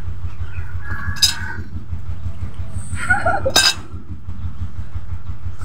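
A steady low mechanical hum, pulsing rapidly and evenly, with two sharp clicks, about a second in and about three and a half seconds in.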